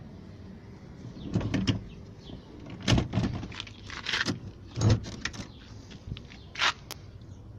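Handling noise from a handheld camera moving around a vehicle's open doorway: about five knocks and rubbing thumps, the last one sharper, over a low steady hum.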